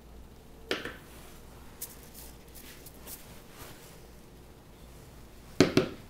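A few light knocks of objects being handled and set down, the loudest a quick double knock near the end, with faint short rubbing or scraping sounds in between.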